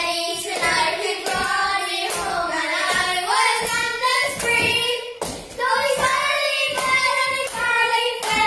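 A group of children singing a song together, with hand claps in time.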